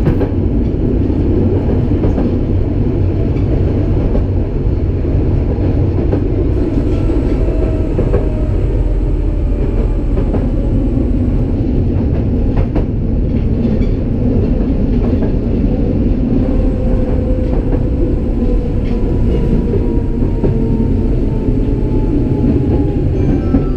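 Tatra K2 tram running along the track: a steady heavy rumble of wheels on rail with a few sharp clicks over rail joints. A whine from the drive slowly falls in pitch through the second half.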